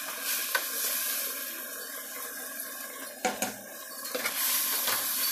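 Spinach sizzling in a hot sauté pan as a slotted spatula scrapes it out, with a few sharp taps of the spatula against the pan.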